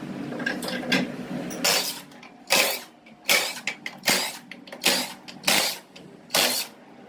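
A hand or power tool at work on a transmission in a workshop: six short, sharp bursts of noise in an even rhythm, about one every three-quarters of a second.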